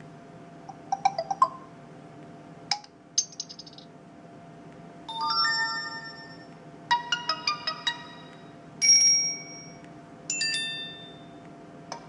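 Stock notification tones of a Samsung Galaxy Mini 2 (GT-S6500) previewed one after another through its loudspeaker: about six short chimes and jingles, each under a second, with brief gaps between them.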